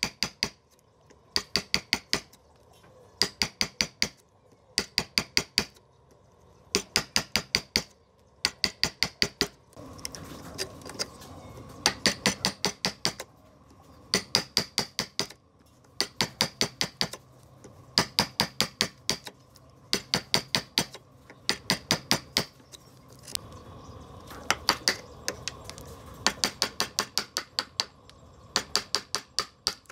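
Hammer striking a wood chisel as it cuts a notch into a timber, in quick runs of about half a dozen sharp, slightly ringing taps, one run every second or two.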